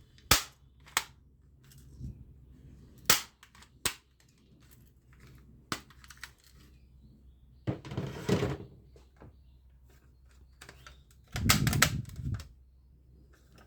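Sharp plastic clicks and snaps from a toy gun: about five separate clicks spread over the first six seconds, then two longer rattling bursts of about a second each, one near the middle and one near the end.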